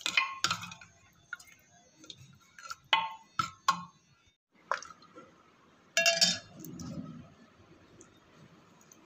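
A metal spoon clinking against the inside of a metal pressure cooker while stirring a thick curry: a series of sharp clinks, clustered near the start, about three seconds in, and again about six seconds in.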